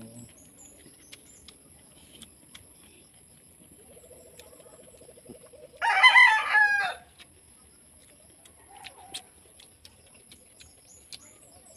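A rooster crows once, about six seconds in, a single crow of just over a second and the loudest sound, led into by a steadier lower buzzing note for about two seconds. Faint scattered clicks and taps sound around it.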